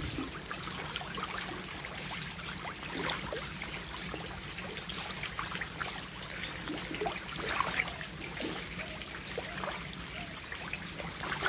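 Water bubbling and trickling in an aerated biofloc fish tank: air bubbles break the surface among crowded fish, with many small irregular plinks and splashes. A steady low hum runs underneath.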